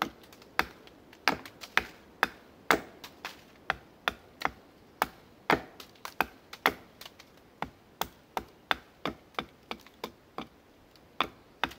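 A small axe chopping a point onto a wooden stake laid against a log: a fast, fairly even run of sharp wooden chops, about two to three a second.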